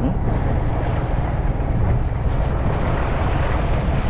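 Wind rushing over the microphone of a moving Yamaha MT-15 motorcycle, with the bike's engine and road noise underneath: a steady rush with no letup.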